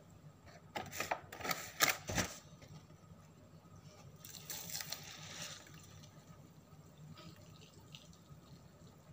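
Several sharp knocks and a dull thump of handling near the start, then hot water from a stainless steel electric kettle poured into a paper instant-noodle cup from about four seconds in.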